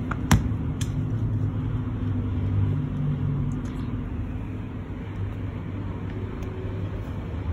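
Steady low background rumble and hum, with one sharp click about a third of a second in and a few faint ticks later.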